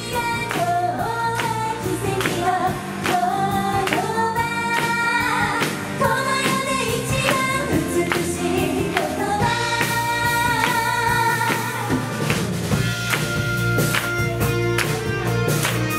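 Live pop band: three women sing together into microphones over electric bass, drums, electric guitar and saxophone. The voices drop out about twelve seconds in, leaving the band playing on.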